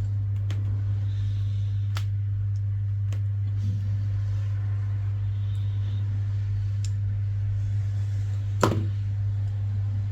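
A steady low electrical hum, with a handful of small sharp clicks and taps from repair tools and small parts being handled on the phone; the loudest tap comes about three-quarters of the way through.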